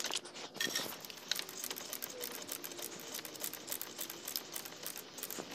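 Hand ratchet clicking in a fast, continuous run of small clicks as an 8 mm bracket bolt on a secondary air injection pump is tightened.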